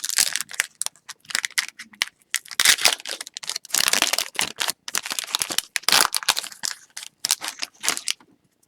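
Plastic trading-card pack wrapper crinkling and being torn open, with cards handled in bursts of crackling.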